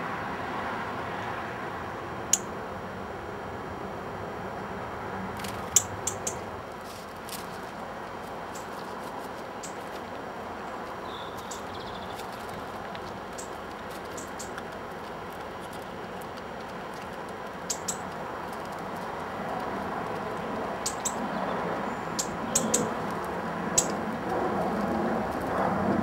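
Wood pigeon pecking seed off a concrete wall-top: scattered sharp clicks, single and in quick little clusters, over steady outdoor background noise that grows louder near the end.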